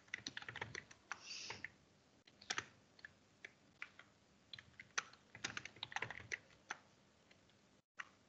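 Typing on a computer keyboard: faint, irregular runs of key clicks with short pauses between them, briefly cutting out near the end.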